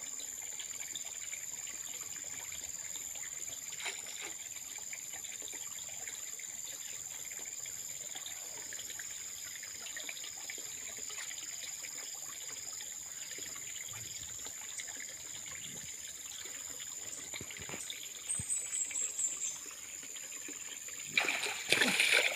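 Muddy pond water trickling and lapping as a man wades and feels under the surface for fish, under a steady high-pitched drone. A loud splash of water comes near the end.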